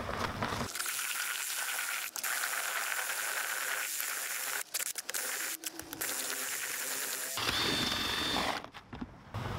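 Ryobi cordless drill spinning a paddle mixer through cement slurry and aircrete foam, a steady whine broken by a few brief pauses.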